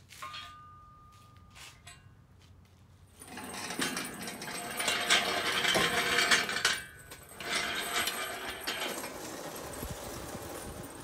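Metal rattling and clanking, starting about three seconds in and going on to the end with a short lull partway through, as steel shop equipment is handled while an engine is readied for an engine stand.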